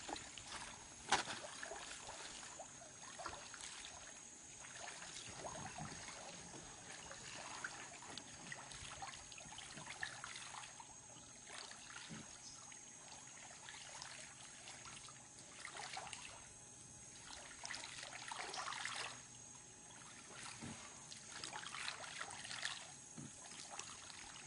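Faint creek water trickling and lapping around a wading angler and a kayak, with scattered small splashes and a sharp knock about a second in.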